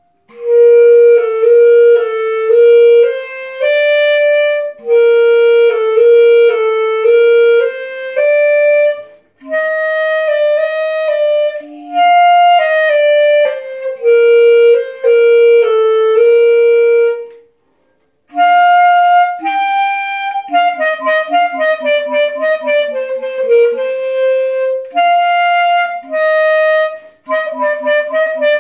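Solo clarinet playing an etude: phrases of held and moving notes with short breaks between them, a full pause a little over halfway through, then a quicker passage of shorter notes.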